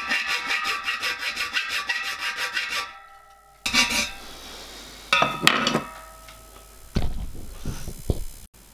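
Flat hand file rasping across the riveted copper boiler plate of a miniature steam locomotive, in quick even strokes about four a second for about three seconds. After a short pause come a few separate scrapes and low knocks.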